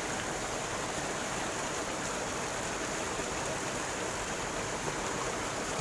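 Steady rush of flowing stream water, an even unbroken hiss.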